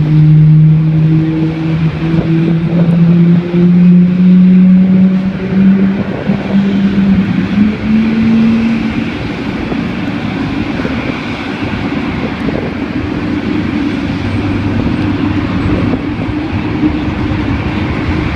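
Boeing 777-300ER's GE90 jet engines during pushback: a low hum rises steadily in pitch over the first nine seconds or so, as an engine spools up, then settles into a steady, noisy rumble.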